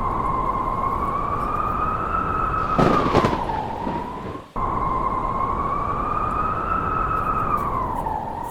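A wolf howling: two long, drawn-out howls back to back, each holding one pitch, rising slightly and falling away at the end, over a steady rushing noise.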